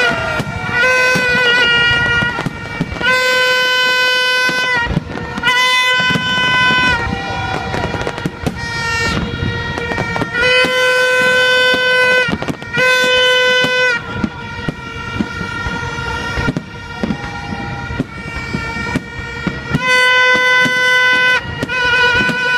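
Horns blown in repeated long toots, each a steady high note lasting a second or two, one after another over the noise of a large outdoor crowd.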